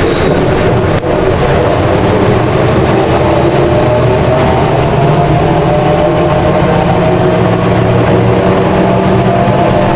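Volvo B10M bus's mid-mounted engine and Voith DIWA 381.4 three-speed automatic gearbox pulling the bus, heard from the rear of the saloon, with a whirring tone that rises slowly in pitch as the bus gathers speed. The whirr is a fault that has gone unrepaired for a year. There is a short knock about a second in.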